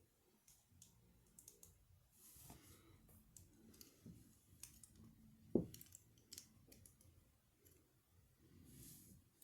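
Faint clicking of small plastic LEGO pieces being handled and pressed together, with one sharper knock about five and a half seconds in.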